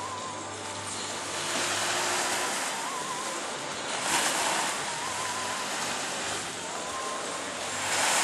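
Sea waves washing onto a shore, the rush of water swelling and falling back every few seconds. A faint wavering tone comes and goes behind it.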